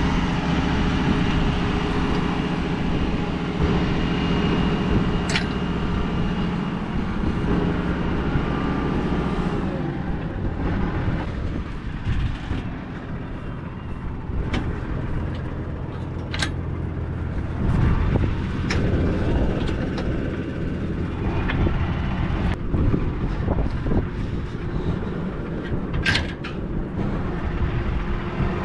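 Tractor engine running steadily, with a few sharp clicks or knocks now and then. Its steady note gives way to a rougher, lower rumble about a third of the way in.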